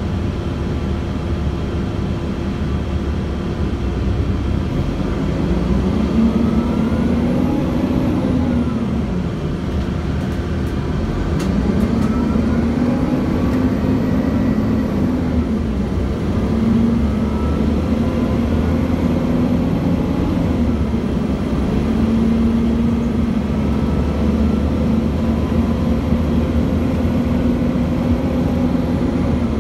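A 2006 Gillig BRT transit bus heard from on board: the Cummins ISL inline-six diesel and Voith automatic transmission running under way. The drivetrain's pitch rises and falls a few times in the first half, then holds steady.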